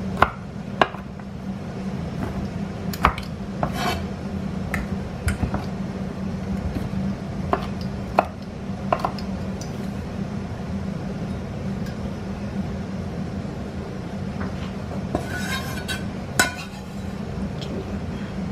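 Kitchen knife knocking on a cutting board while chopping soaked black fungus: scattered, irregular knocks, over a steady low hum.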